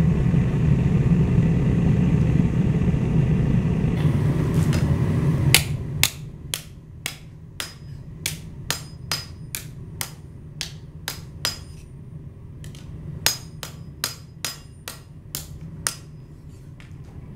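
A forge running with a steady low rush, then a fullering tool used as a hammer striking a hot steel trowel blade down into the cup of a swage block: some twenty sharp blows at about two a second, with a short pause about halfway, cupping the blade.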